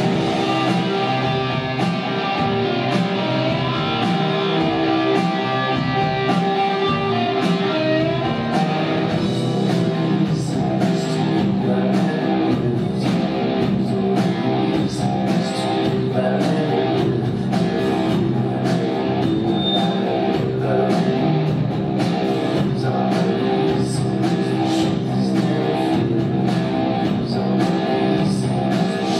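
A live rock band plays an instrumental passage: electric guitar over drums keeping a steady beat, with the drum and cymbal hits coming through more sharply from about ten seconds in.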